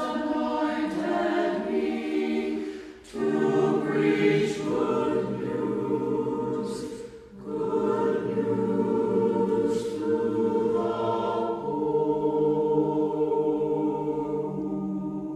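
Choir singing slow, held chords, with two short breaks between phrases, about three and seven seconds in.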